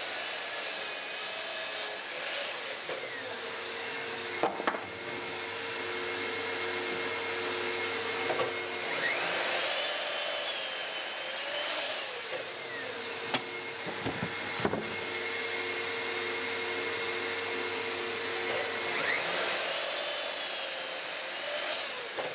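Bosch sliding miter saw crosscutting 2x4 construction timber in repeated cuts about ten seconds apart, the motor whining up and winding down with each cut. A shop vacuum hums steadily underneath for dust extraction, with knocks of boards being set against the stop block between cuts.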